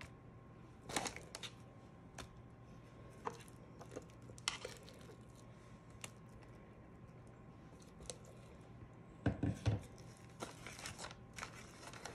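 Scattered kitchen handling noises as chocolate cream is spread on a sponge cake: a metal spatula and spoon clicking and scraping, parchment paper crinkling, and a few low knocks about nine seconds in. A faint steady hum runs underneath.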